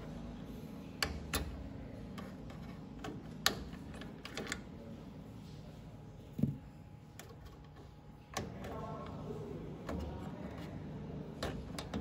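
Scattered sharp clicks and light taps of small computer hardware being handled, over a low steady hum, with a duller knock about halfway through.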